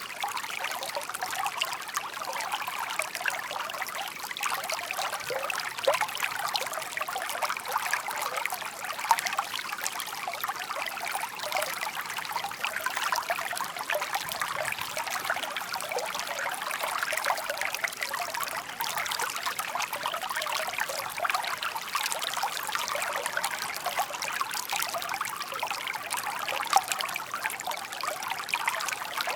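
Shallow stream babbling and trickling over stones: a steady patter of small splashes and bubbling with a bright, thin sound and almost no low rumble.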